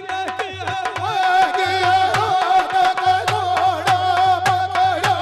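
Nahda folk music through a loud sound system, with no words: a wavering, held melody over a steady drone, driven by a fast, regular drum beat with bass thumps.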